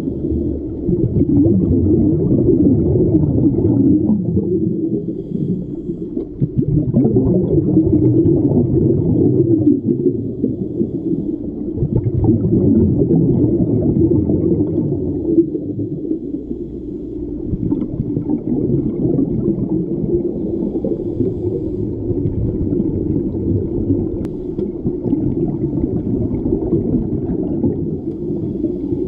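Muffled underwater rumble and bubbling, recorded through an action camera's waterproof housing, with scuba divers' exhaled bubbles streaming up.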